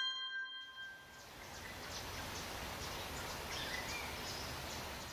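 The last of a ringing chime dies away right at the start. It gives way to a steady outdoor ambience: an even rushing noise with faint bird chirps.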